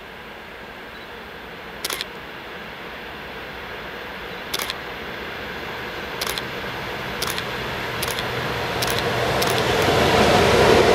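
An approaching train's rumble growing steadily louder, with about seven sharp metallic clicks that come closer together as it nears.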